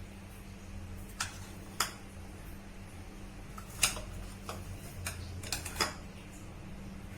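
A few sharp, scattered clinks and taps of kitchen utensils against dishes, over a steady low hum.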